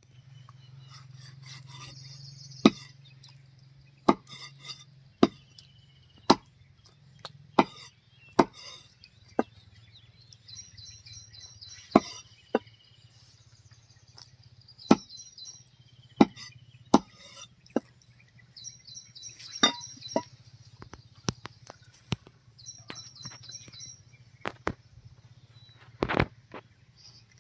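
Knife cutting goat heart and kidney on a wooden chopping block: sharp, irregular knocks of the blade on the wood, about one a second. Bursts of rapid high chirping sound behind them.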